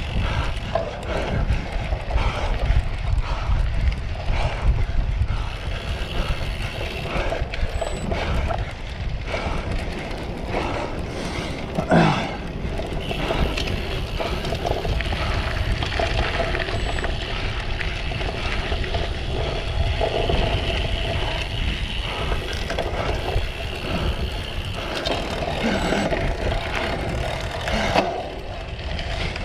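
Cyclocross bike ridden hard over a rough course, heard from a camera on the bike or rider: steady rumble and rattle of tyres and frame with wind on the microphone. A brief, loud rising sound stands out about twelve seconds in.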